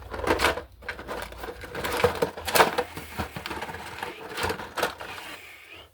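Irregular clicking, rustling and scraping of hands handling bare copper ground wires and a plastic lever connector at an electrical box.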